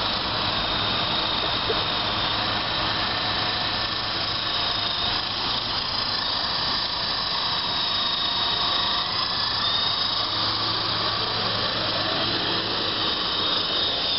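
Small electric remote-control helicopter's motor and rotors whining steadily, a thin high tone that wavers slightly in pitch over a steady hiss.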